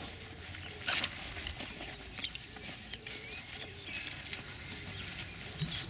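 Outdoor lakeside ambience: a few short knocks and rustles, about a second in and again near two seconds, over faint scattered bird chirps.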